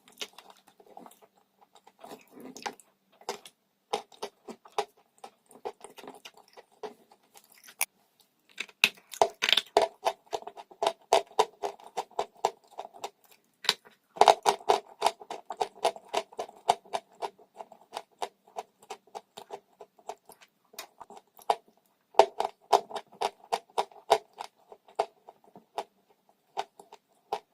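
Chewing crunchy dry chalk: quick runs of sharp crunches, coming in bursts with short pauses, busiest from about nine seconds in.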